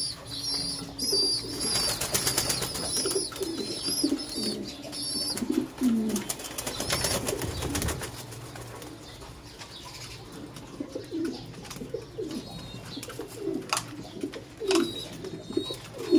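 Caged domestic meat pigeons cooing: short, low, repeated coos through the whole stretch. A few brief rustling bursts come about two seconds in and again around seven seconds in.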